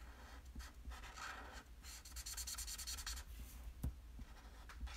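Stampin' Blends alcohol-ink marker colouring on cardstock: faint scratchy nib strokes, with a run of quick back-and-forth strokes about two seconds in and a single light tap near the end.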